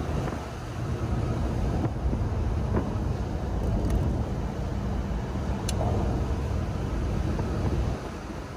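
Ferrari F355's V8 engine running steadily as the car drives, heard from inside the cabin with road noise.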